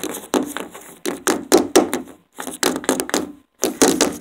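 Handling noise on the camera's microphone: a dense run of loud scratches, rubs and taps as the camera is gripped and swung about, broken by two short gaps.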